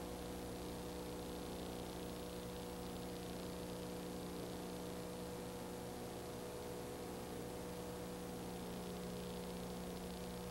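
Steady electrical hum with several held tones over a constant hiss, with no other sound: the background noise of a silent film transfer.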